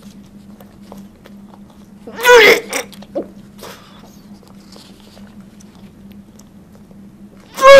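A person's mouth making two short, loud, high-pitched vocal cries, one about two seconds in and another right at the end, over a steady low hum.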